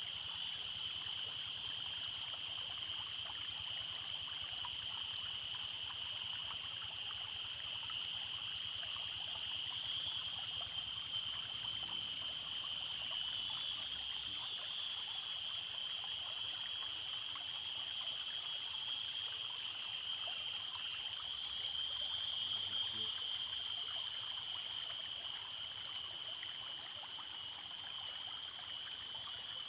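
Stream water running steadily, with a steady high-pitched whine over it that swells louder about a third of the way in and again a little past two-thirds.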